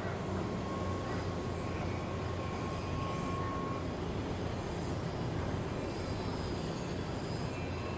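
Steady low rumble of heavy shipyard machinery, with a thin whining tone that stops about four seconds in.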